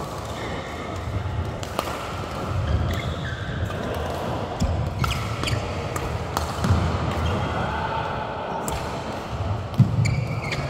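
Badminton rally: sharp racket strikes on the shuttlecock about a second apart, with footsteps thudding on the court mat and short shoe squeaks, in a large echoing hall.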